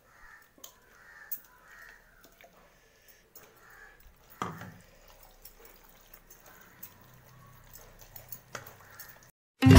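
Thick wet masala paste scraped from a steel mixer-grinder jar onto raw chicken in a steel pot and rubbed in by hand: soft squelches and scrapes with small clicks of metal, and one louder knock about four and a half seconds in. The sound cuts off suddenly near the end.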